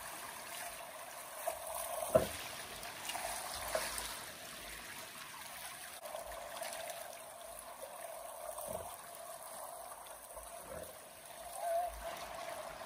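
Kenai River water running steadily, with a few brief knocks, the sharpest about two seconds in.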